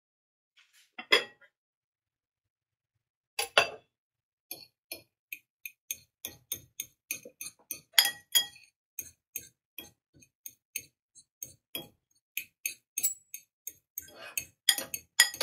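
A metal fork stirring and fluffing freshly microwaved rice in a white ceramic casserole dish, making quick light clinks and scrapes against the dish at two to three a second. Before that come two louder knocks, about one and three and a half seconds in, as the dish's lid comes off.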